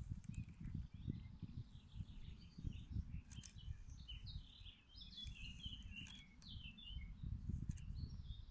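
Birds chirping, most busily in the middle stretch, over a low, uneven rumble on the microphone.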